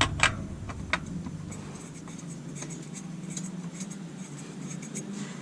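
Light scraping and rubbing with a few small clicks near the start, as a spin-on oil filter is threaded onto its housing by hand.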